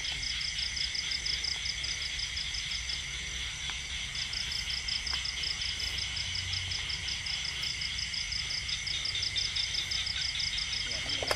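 Night chorus of crickets and other insects: a steady high-pitched trill with a rapid pulsing call over it that drops out for about a second, three seconds in.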